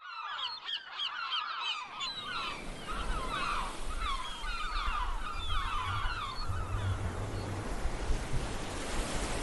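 A flock of birds calling over one another in many short, rising-and-falling cries that thin out and stop about seven seconds in. A steady rushing noise with a low rumble underneath comes in about two seconds in and carries on.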